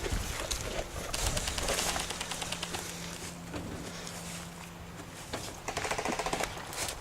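Airsoft guns firing full-auto bursts: rapid runs of clicks, one about a second in and another near the end.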